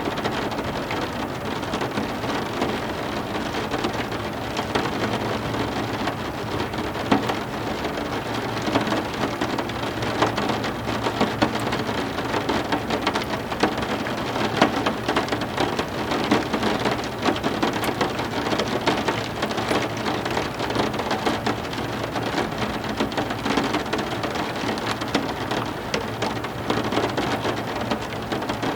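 Heavy rain falling steadily, with a dense patter of individual drops striking a surface close by.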